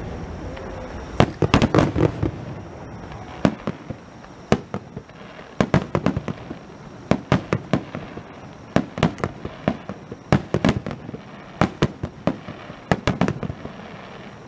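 Aerial firework shells bursting overhead in a rapid barrage. Sharp booms come singly and in quick clusters of several a second, with a low rumble between them.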